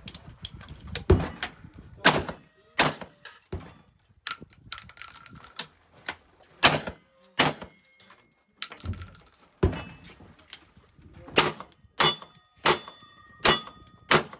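A cowboy action shooting string of about fifteen gunshots at an uneven pace. The early shots are from a side-by-side double-barrel shotgun, with pauses while it is broken open and reloaded. Near the end comes a quicker run of single-action revolver shots, and steel targets ring after many of the hits.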